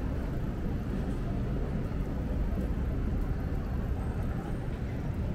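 City street ambience: a steady low rumble of passing traffic, with no single event standing out.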